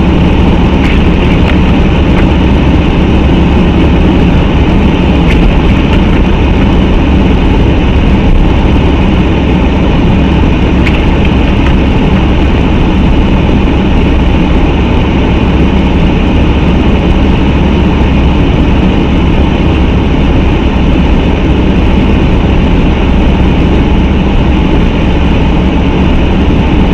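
Loud, steady road and engine noise inside a moving car, recorded by a dashcam's microphone: a constant low rumble with tyre hiss, and a few faint ticks.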